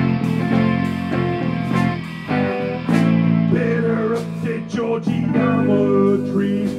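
A band playing live: electric guitars over a drum kit, with a wavering melodic line coming in over the top about halfway through.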